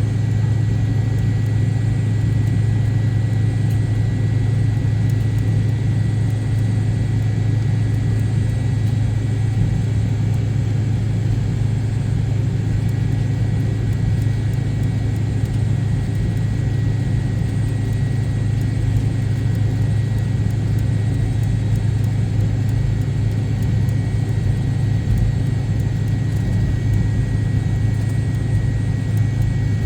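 Cabin noise of a McDonnell Douglas MD-88 on the ground: its rear-mounted Pratt & Whitney JT8D turbofans run at low power as a steady deep rumble, with a faint steady whine above it.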